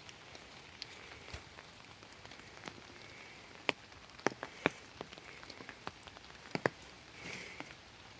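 Steady rain falling, an even hiss with irregular sharp taps of single drops landing close by, several in quick succession in the middle of the stretch.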